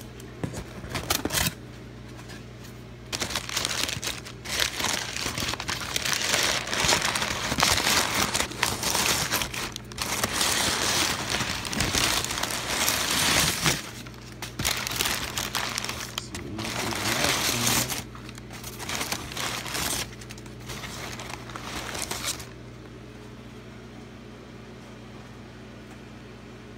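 Crumpled brown packing paper rustling and crinkling in bursts as hands dig through a shipping box. The rustling stops about three-quarters of the way through, leaving a steady low hum.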